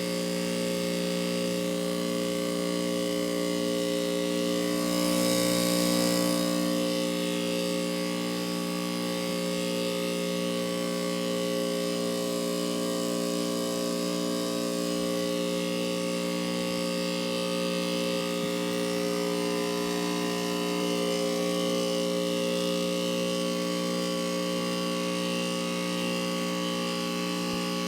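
1996 two-ton Heil 5000 heat pump running in its defrost cycle: a steady hum made of several held tones, with a brief swell of hiss about five seconds in.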